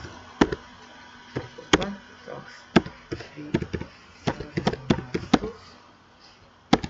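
Computer keyboard keys being typed in an uneven run of about fifteen sharp clicks, with a pause of about a second before one last keystroke near the end.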